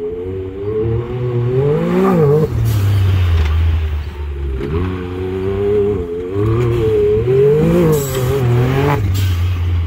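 Side-by-side UTV engine revving hard as it is driven on a dirt track. The pitch climbs twice and falls off sharply each time the throttle is lifted, about two and a half seconds in and again near the end.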